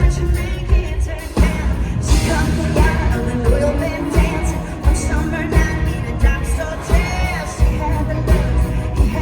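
A woman's lead vocal singing a country song live over a full band with a steady kick-drum beat.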